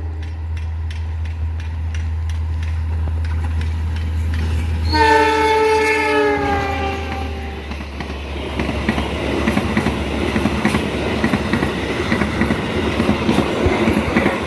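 Argo Wilis passenger train passing: the diesel locomotive's engine runs with a low steady rumble, and its horn sounds for about two and a half seconds about five seconds in, dropping in pitch as it goes by. Then the carriages rattle past with a rhythmic clickety-clack of wheels over the rail joints.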